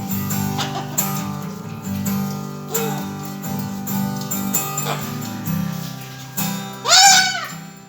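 Acoustic guitar strumming chords, with a cockatoo giving one loud call that rises and falls in pitch about seven seconds in.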